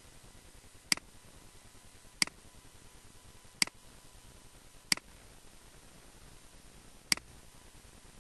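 Five single clicks of a computer mouse button, sharp and short and unevenly spaced, over a faint steady hiss.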